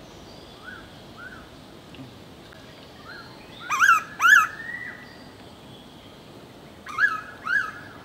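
Mangrove pitta calls, double whistles whose notes each rise and fall: a faint pair about a second in, then a loud pair about four seconds in from the bird itself. Another pair near the end is a recording of the call played from a phone to lure the bird out.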